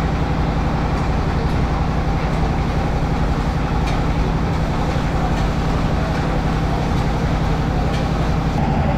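Steady low engine drone with street traffic noise, unchanging throughout. A few light clicks of spoons on plates sound over it.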